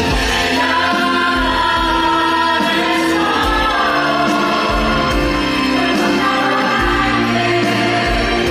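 Curtain-call number of a stage musical: the cast singing together in chorus over band accompaniment, with sustained notes and bass notes underneath.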